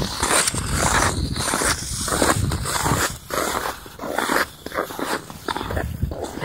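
Wind buffeting a handheld camera's microphone while ice skating at speed, with skate blades scraping the ice in repeated strides.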